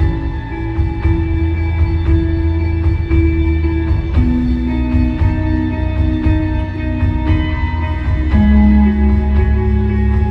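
Instrumental post-rock band playing live: layered electric guitars ringing long, sustained notes over a steady low bass, with a soft pulse about once a second.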